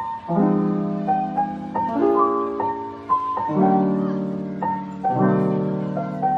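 Background piano music: sustained chords changing about every second and a half under a higher melody line.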